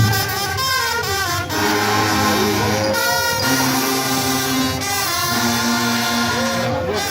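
Marching brass band playing held brass chords, with several notes sliding or bending in pitch.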